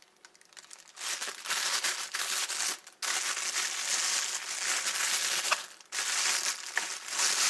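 Packaging crinkling and rustling in three spells of handling, starting about a second in, with short breaks near the three- and six-second marks.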